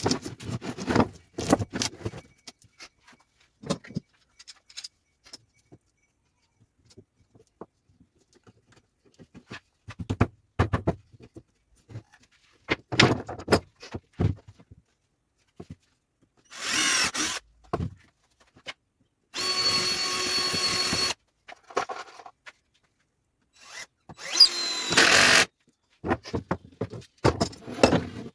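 Power drill running in three short bursts of a second or two, between scattered clicks and knocks from handling wood and hardware.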